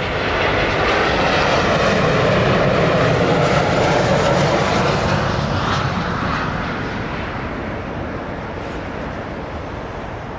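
Jet airliner's engines passing close, a loud steady rush that is strongest in the first few seconds and then slowly fades away.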